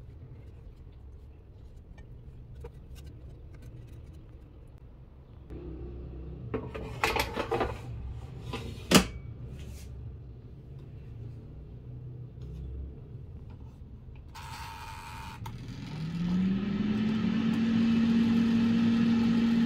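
Philips air fryer: the basket drawer clatters in and clicks shut about nine seconds in. Near the end the fan motor starts, its hum rising in pitch and settling into a steady whir with rushing air.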